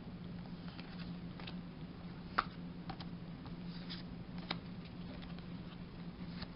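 Faint scattered taps and clicks of Pokémon trading cards being handled, one sharper tick about two and a half seconds in, over a steady low hum.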